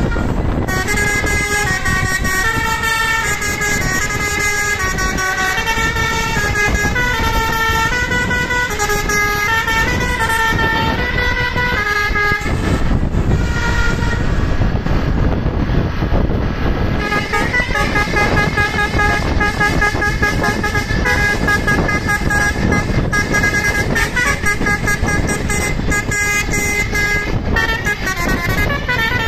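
A bus's 'basuri' telolet musical horn playing a stepping multi-note tune, over steady bus engine and road noise. The tune stops for a few seconds just before the halfway point, then starts up again and keeps playing.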